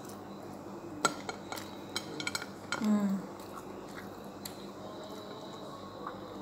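Fingers working the shell of a cooked blue swimming crab (alimasag), giving a series of sharp clicks and cracks of shell with light knocks against the plate. A short hum from the eater about three seconds in is the loudest sound.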